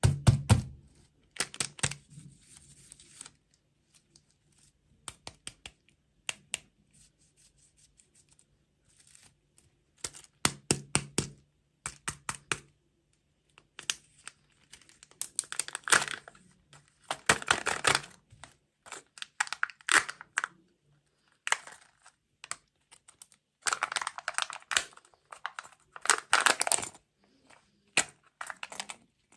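Food packaging being torn open and crinkled in repeated bursts of crackling and tearing, with short pauses between.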